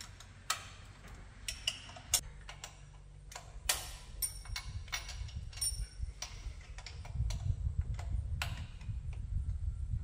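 Irregular clicks and metal clinks of hand tools and bolts as a Holley Sniper EFI throttle body is unbolted and lifted off the intake manifold, with a low rumble from about seven seconds in.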